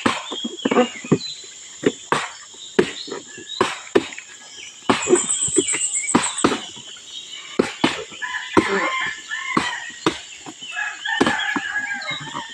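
Repeated irregular chopping blows of a blade into a felled palm trunk, cutting out the palm heart, about one to two a second. Under them runs a steady high insect buzz.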